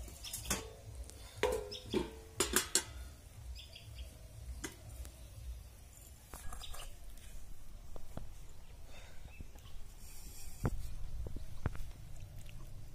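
Steel ladle clinking and scraping against a metal kadai and steel bowls as curry is served. There is a quick run of clinks, some ringing briefly, in the first few seconds, then a couple more knocks near the end.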